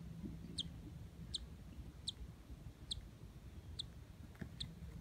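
Cockatiel chick peeping from inside its egg as it gets ready to hatch: six faint, short, high peeps, each falling in pitch, evenly spaced about three-quarters of a second apart.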